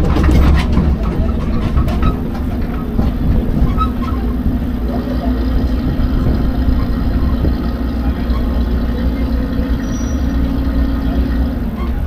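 Open parking-lot tram underway: its engine running at a steady low hum while the car rolls over asphalt, with a few rattles in the first half second.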